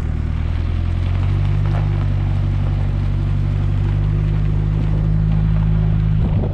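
A 4WD's engine running steadily as it drives, heard from inside the cabin over an even road noise. The engine note rises slightly about a second in.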